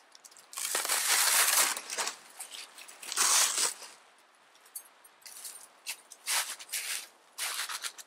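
Snow crunching under snowshoes and gear rustling and scraping on a plastic sled as it is unpacked: a long crunch about a second in, another about three seconds in, then shorter scuffs.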